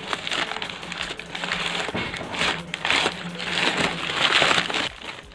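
Crumpled newspaper packing crinkling and rustling as hands pull it out of a cardboard box. The crinkling comes in bursts of handling and is loudest toward the last couple of seconds.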